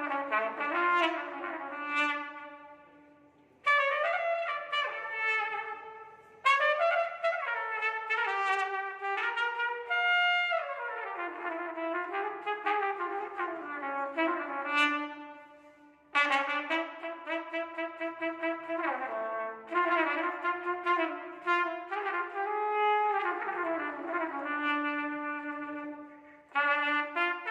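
Solo trumpet playing a slow melody in long phrases. Each phrase ends with notes fading out before a short pause for breath, about four times.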